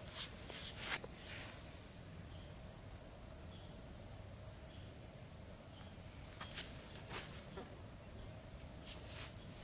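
Quiet outdoor ambience with a steady low hum, a run of faint short high chirps in the middle, and a few brief clicks near the start, in the middle and near the end.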